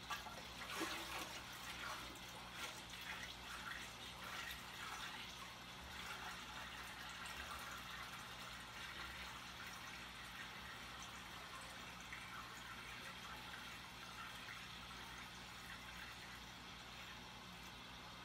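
Faint water trickling and splashing in an aquarium, uneven for the first several seconds and then a steadier trickle, over a low steady hum.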